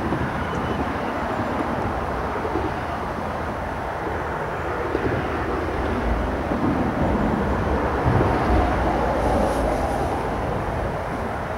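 Steady low outdoor rumble of wind buffeting the microphone, mixed with traffic noise from a nearby road bridge, swelling slightly about eight seconds in.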